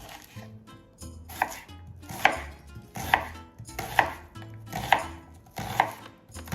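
A sharp strike repeated evenly, about one a second, seven times, over a low tone that shifts in steps.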